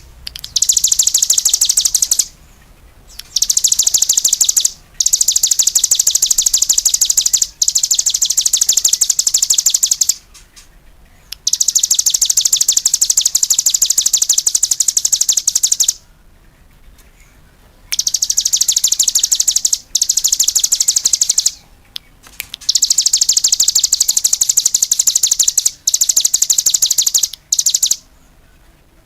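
Small songbird known in Indonesia as the cigun, singing in full, vigorous song. It gives long bouts of very rapid, high twittering notes lasting a few seconds each, broken by short pauses.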